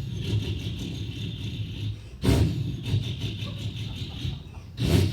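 A man imitating a Chevrolet Duramax diesel pickup with his voice: a low rumbling idle with a steady hiss standing in for the turbo whistle, and sharp loud bursts about two seconds in and again near the end.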